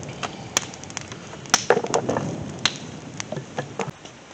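Campfire being stoked: wood crackling and popping, with irregular sharp snaps and a cluster of louder cracks partway through.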